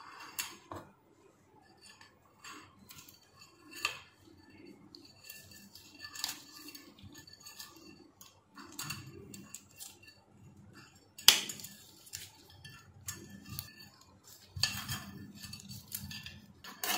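Light metallic clicks and scrapes from pliers twisting steel wire onto the coiled heating-element wire, with one sharper click about two-thirds of the way through.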